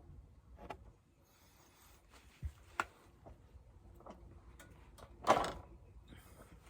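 Honda XR650R single-cylinder engine, not running, giving a few scattered clicks and clanks as it is turned over, the loudest a short clatter about five seconds in. The owner notes it is hard to turn over and makes seemingly extra clanking.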